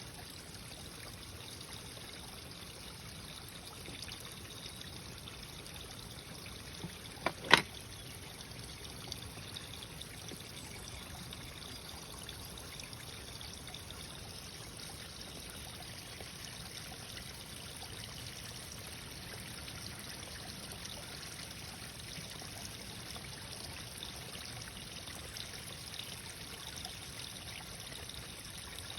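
Water trickling and running steadily, like a small stream. A little after seven seconds there are two sharp clicks close together, the second one loud.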